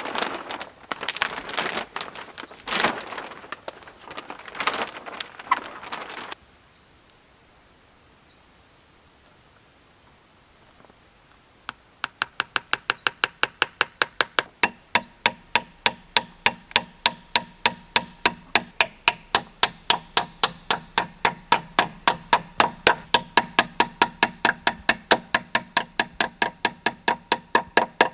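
Crunching and rustling of brush for the first few seconds, then a quiet pause with a few faint bird chirps. After that comes fast, even chopping of wood with a blade, about four strikes a second, growing louder.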